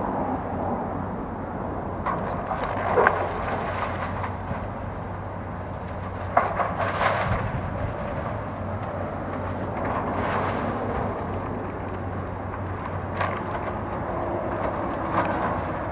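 Komatsu hydraulic excavator's diesel engine running steadily as its bucket tears into a brick house. Debris crunches and crashes several times, the loudest about 3 and 6.5 seconds in.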